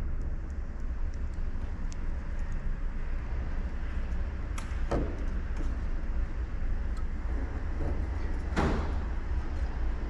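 A steady low rumble, with a few short clicks and rustles as the thin wire leads of a crossover capacitor are twisted onto a tweeter's wires by hand; the clearest come about halfway through and near the end.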